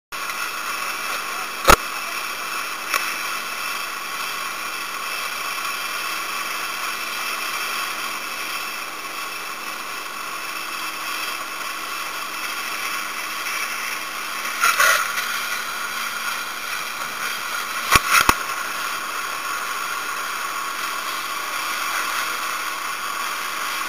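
Boat running at speed over open water: a steady hiss of wind and spray on the camera with a faint motor drone. A few sharp knocks break through, one near the start and two past the middle.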